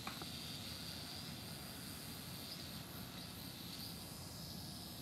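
Small electric quadcopter's motors and propellers whining steadily at a high pitch as it hovers low over the ground.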